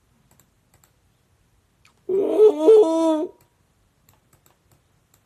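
A man's voice giving one high, wordless, drawn-out vocal note with a wavering pitch, about a second and a half long, starting about two seconds in; faint light clicks are heard around it.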